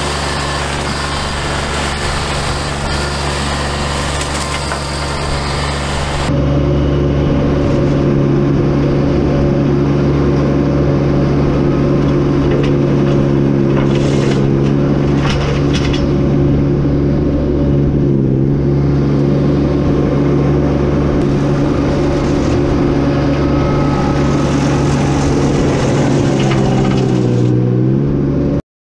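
Tracked mini skid steer's engine running steadily, driving an FMM148 flail mower. About six seconds in the sound turns abruptly louder and duller. The engine note dips slightly just before it cuts off near the end.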